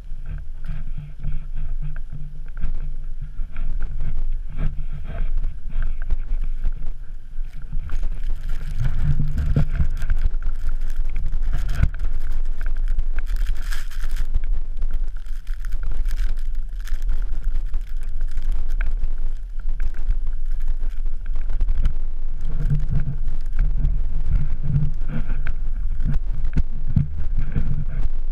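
Wind buffeting the microphone as a steady low rumble, louder in gusts, with crunching and knocks from boots and walking poles in snow.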